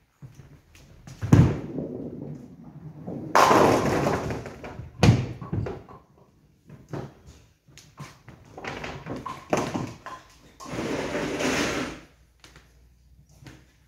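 Nine-pin bowling ball thudding onto the lane about a second in and rolling, then crashing into the pins with a long loud clatter, followed by another heavy thump. After that the lane's pinsetter and ball return rattle and knock for several seconds while the pins are reset.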